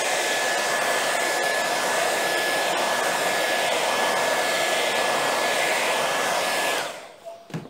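A Remington hand-held hair dryer runs steadily, a rushing blow with a thin constant whine, drying the freshly ragged metallic paint on an MDF panel. It is switched off about seven seconds in and winds down, followed by a short knock near the end.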